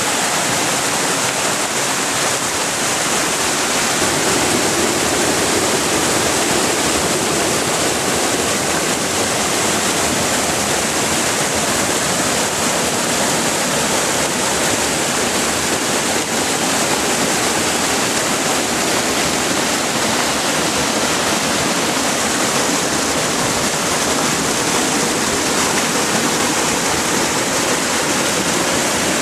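Floodwater rushing steadily past in a swollen, storm-fed creek: a loud, unbroken wash of fast-moving water.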